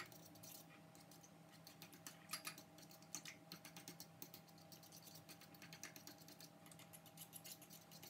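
Fork whisking a banana and milk mixture in a bowl: quick, irregular faint clicks and taps of the fork against the bowl.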